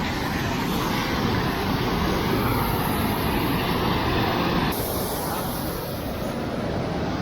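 Rushing water of a mountain waterfall or cascade: a loud, steady rush of noise with no distinct events. Its higher hiss dulls slightly about five seconds in.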